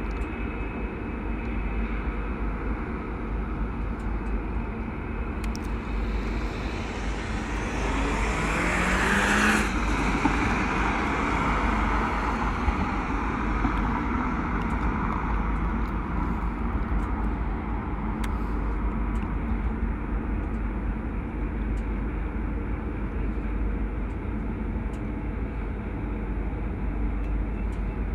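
Outdoor road traffic with a steady low wind rumble; one vehicle passes close, swelling and rising in pitch about eight seconds in and cutting off near ten seconds.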